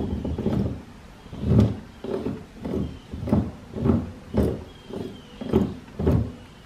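Pickering steam engine governor turned by hand with its flyballs spinning, the mechanism knocking dully about twice a second, with a few faint squeaks.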